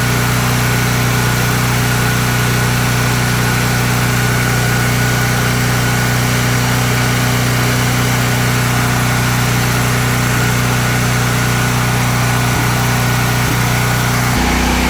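Honda generator engine running steadily at a constant speed, a loud even hum with a thin high whine over it. About fourteen seconds in, the low part of the hum shifts in tone.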